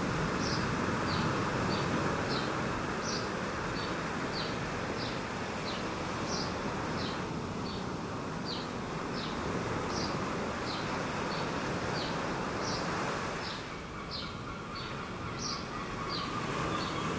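Steady outdoor wash of wind and small waves, with a short, high chirp repeated about twice a second.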